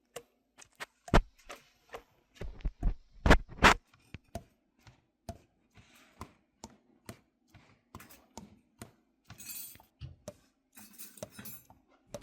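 A series of light clicks, taps and clinks of small hard objects, irregularly spaced, with a few louder knocks about a second in and again around three seconds in.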